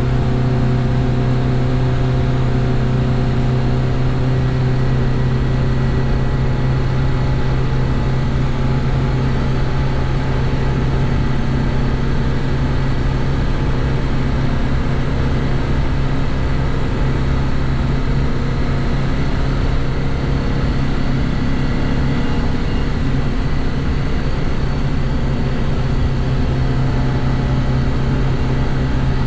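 Reliant Regal three-wheeler's four-cylinder engine running steadily at cruising speed in top gear, just under 4,000 rpm at about 50 mph, heard from inside the cabin over road noise. The pitch holds steady throughout.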